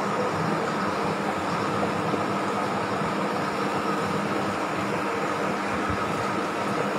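A steady mechanical hum with a rushing noise, unchanging throughout, with a few faint steady tones in it.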